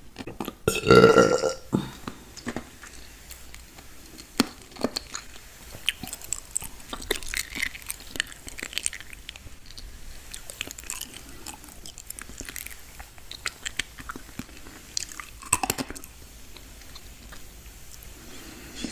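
A woman eating close to the microphone: mouth smacks, bites and chewing clicks, with one loud burp about a second in.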